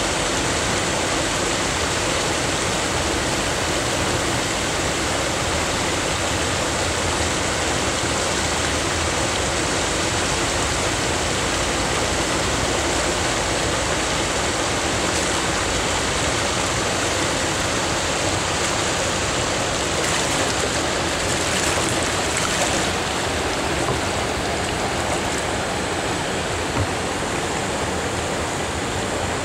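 River water pouring over a small weir: a steady, even rush.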